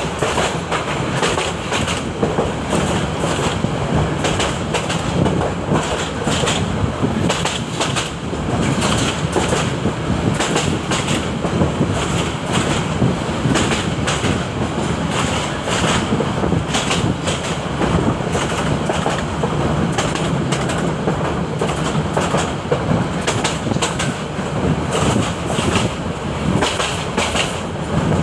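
Railway carriage running along the track: a steady rumble and rattle of the wheels on the rails, with frequent clacks as the wheels cross the rail joints.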